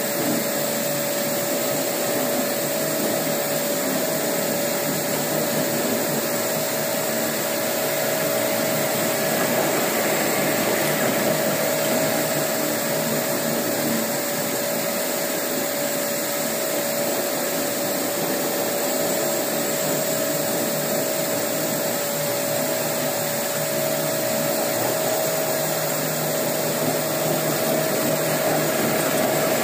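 Walk-behind concrete floor grinder polishing a concrete slab with resin-bond diamond pads, running steadily: a rushing noise with one constant hum, growing slightly louder near the end as the machine comes closer.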